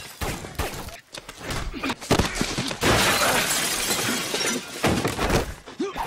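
Fight-scene soundtrack: a quick run of blows, thuds and crashes with shattering, as bodies and objects smash about a room.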